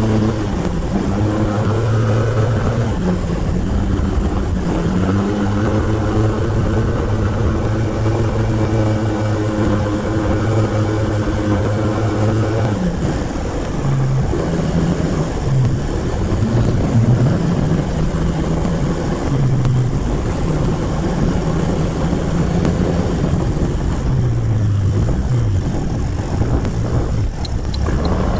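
Motorcycle engine running under load on a hill climb, with wind rushing over the bike-mounted microphone. The engine note holds steady for the first half, then rises and falls with throttle changes from about halfway through.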